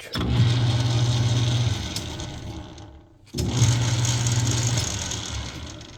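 Rockwell 25-700 10x24 metal lathe with a Reeves variable-speed drive, switched on with its drum switch and run briefly, then switched off and spinning down, twice over: a steady motor hum with belt and gear noise that starts suddenly and fades as the spindle coasts to a stop.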